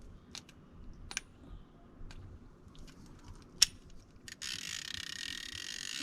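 A Haibo Arise Air BFS baitcasting reel clicks a few times as it is handled. About four seconds in, its drag starts slipping, a steady rapid run of dull, muted drag clicks.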